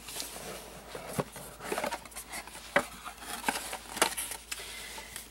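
Cardboard trading-card deck box being handled and opened: a few light taps and soft scrapes of cardboard as the inner tray is slid out of its sleeve.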